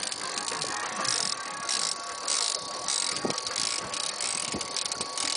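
Big-game fishing reel being cranked against a fish on a bent rod: the reel's gears and pawl rattle in short bursts, about one every half second or so, with a faint steady whine underneath.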